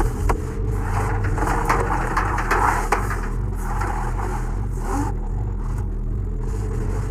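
Washing machine running with a steady, pulsing low hum, with irregular scraping and rustling over it.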